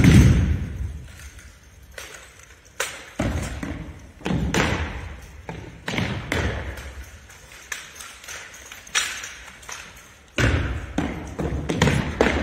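Exhibition drill team's rifles slapped, thumped and handled in unison, sharp echoing slaps and thuds in a large gym. They come in separate single hits and short clusters with pauses between, growing into a quick run of hits near the end.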